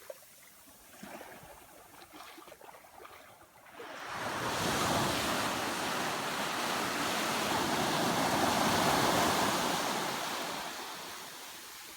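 Ocean waves on a beach: soft small splashes for the first few seconds, then a wave surges in about four seconds in, grows to its loudest and slowly fades away near the end.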